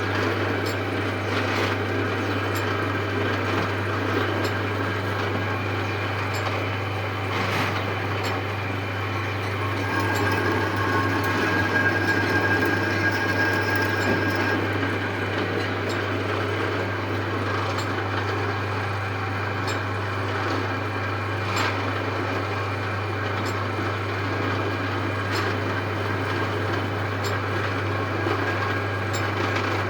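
Metal-turning lathe running steadily with a constant low hum while machining a workpiece. A thin, high squeal sounds for about four seconds in the middle, and there are a few sharp clicks.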